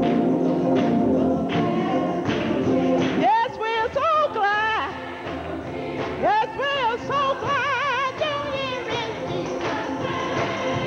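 Gospel choir singing: full held chords for the first three seconds or so, then a single lead voice sings runs with a wide vibrato over the choir.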